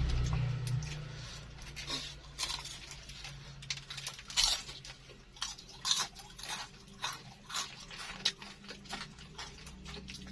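Close-miked crunchy chewing of crispy fried baklor, an egg martabak in a lumpia-wrapper shell: irregular crackling bites and chews, about one or two a second.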